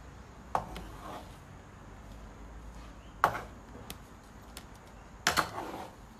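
Metal tongs clacking against a bowl while food is served out: a few sharp clacks spread out over the seconds, the last one doubled.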